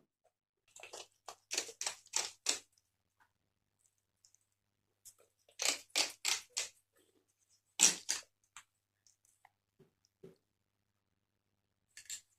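Kitchen prep sounds: quick runs of short, sharp knocks and clinks, about three or four a second, in groups separated by pauses.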